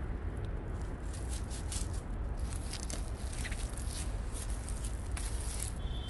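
Footsteps crunching and rustling through dry fallen leaves, a busy, irregular crackle over a steady low rumble.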